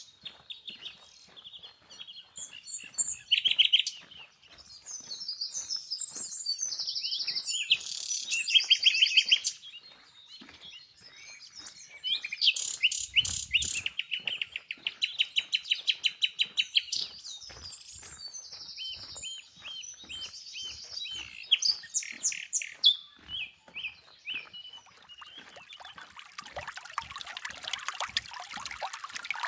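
Several songbirds singing, one after another: rapid trills and chirped phrases, high-pitched. Near the end the steady trickle of a flowing creek rises underneath.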